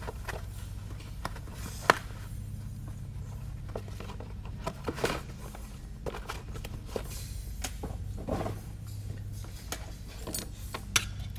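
Handling noise as a small FPV drone is packed back into its cardboard product box and the box is moved: scattered clicks, taps and light knocks, the sharpest about two seconds in, over a steady low hum.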